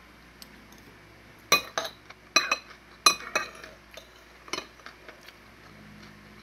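A metal spoon clinking and scraping against a bowl while scooping up food. The sharp clinks come in a cluster from about one and a half to three and a half seconds in, with one more a second later.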